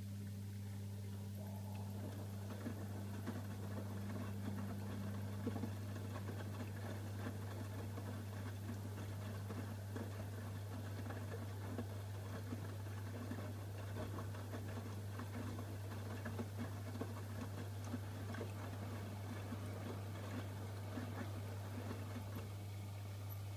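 AEG Öko-Lavamat washing machine drum turning and sloshing the wash load in water for about twenty seconds, starting a second or so in and stopping near the end, over a steady low hum.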